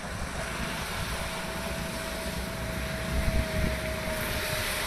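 Road traffic passing: engines of a light goods truck and a motorcycle running steadily, with a faint steady whine through most of it.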